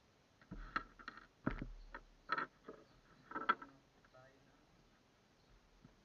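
A quick run of knocks and clatters, hard objects being handled, in the first half; after that only faint hiss.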